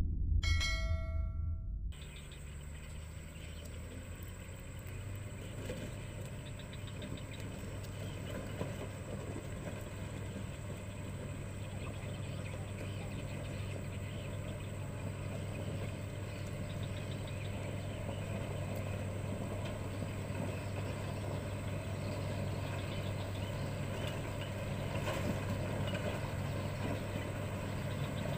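After the last chime notes of a short intro jingle, the diesel engine of a Caterpillar 120H motor grader runs steadily as the grader spreads and levels red stone on a dirt road. It grows gradually louder as the grader comes closer.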